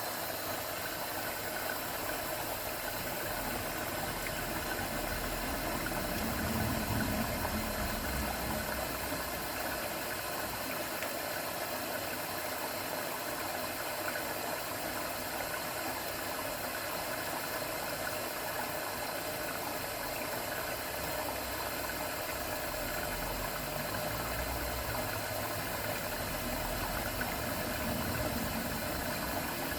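AEG Öko-Lavamat 693 front-loading washing machine running a wash cycle, a steady mechanical running noise with a low rumble that swells twice, around six seconds in and again in the second half.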